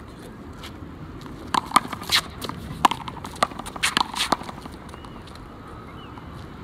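A one-wall handball rally: the small rubber ball slapped by gloved hands, hitting the concrete wall and bouncing on the court. It comes as a quick run of about seven sharp smacks, starting about one and a half seconds in and ending after about three seconds.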